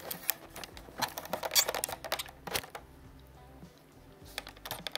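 Irregular clicks and light knocks, scattered and uneven.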